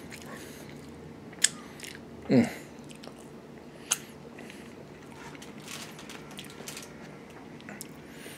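Close chewing and mouth sounds of someone eating a barbecue chicken wing, with two sharp clicks and a short falling "mm" about two seconds in.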